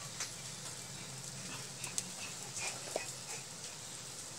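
Thin gravy bubbling and hissing in an iron wok, with a few light clicks and some short, faint animal calls in the background.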